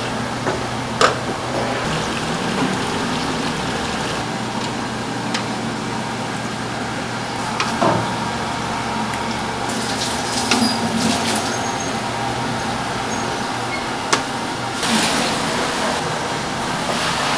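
Steady low mechanical hum of workshop machinery, with a few sharp knocks of stainless-steel pots and short splashy stretches of liquid being poured and stirred in soy milk.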